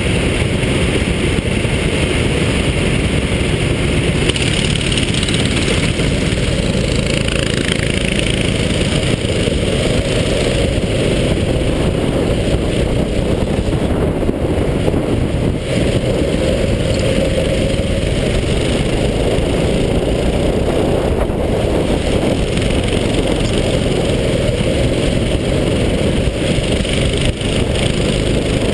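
Go-kart engine running continuously at speed through a lap, heard from the driver's helmet camera as a steady, loud rumble with no pauses.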